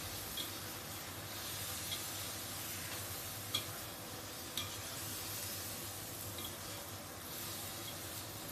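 Marinated lamb pieces sizzling in a deep wok while being stir-fried, with a metal spatula scraping and tapping against the wok a handful of times.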